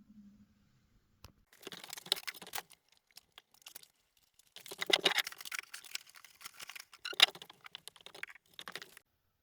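Handling noise in three bursts: quick rustling and light clicking clatter, as of objects or packaging being moved about by hand.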